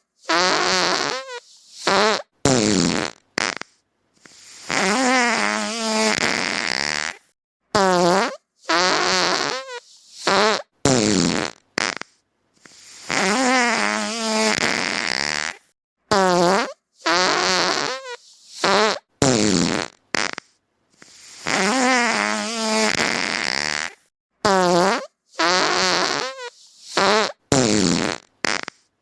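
A string of fart sounds, one after another with short silent gaps. They range from short pitched toots to longer wavering, sputtering ones, and the same sequence repeats about every eight seconds.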